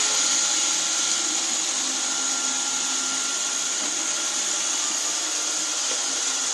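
Robot vacuum cleaner running steadily: a continuous motor hum with a high, even hiss and a thin steady whine.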